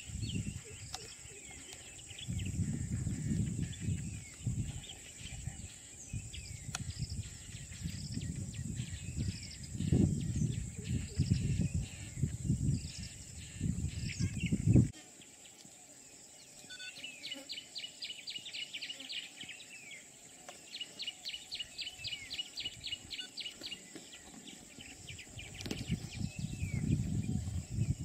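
Outdoor scrub ambience: a steady high insect drone with scattered bird chirps and calls. For about the first fifteen seconds, low rumbling noise on the microphone sits under it and then stops suddenly. Later come two runs of fast, evenly pulsed trills, and the low rumble comes back near the end.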